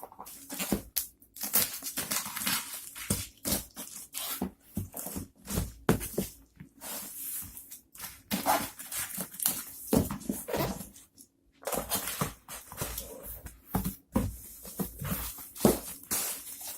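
A cardboard shipping box being opened by hand: packing tape torn and cardboard and protective packing rustled and handled in irregular bursts.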